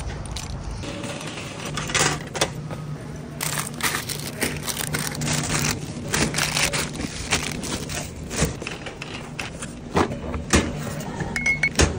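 Shopping-cart and grocery handling: clicks and clunks as an Aldi cart's coin lock is worked, crinkling plastic packaging, and items knocking into a wire shopping cart. A low steady hum runs under them for the first half or so.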